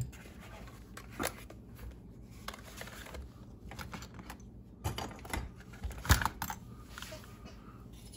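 Handling noise from a plastic Traxxas RC truck chassis being turned over and moved about on a rubber work mat: scattered clicks and knocks with rustling between, the sharpest knock about six seconds in.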